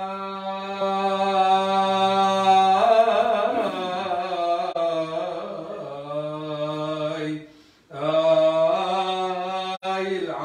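A man's solo voice chanting a Chaldean liturgical chant in long, held notes with little pitch movement, with a short breath break about three quarters of the way through.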